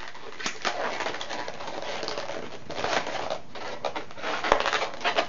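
Latex twisting balloons rubbing against each other and the hands as they are twisted and worked, with a few sharp snaps near the end.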